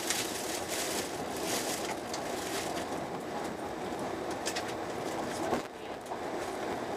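Eurostar Italia train running slowly on the rails, heard from inside the carriage as a steady rumbling hiss. A couple of sharp ticks come about four and a half seconds in, and a brief click near five and a half seconds.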